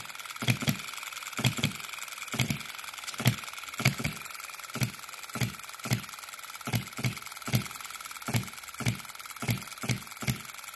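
OKMO B01 scale hit-and-miss model engine, a 3.4 cc four-stroke running on petrol, running on its own with sharp pops about twice a second at uneven spacing as it fires and coasts. Its ignition has just been retarded to fire after top dead centre, giving a longer, more powerful hit.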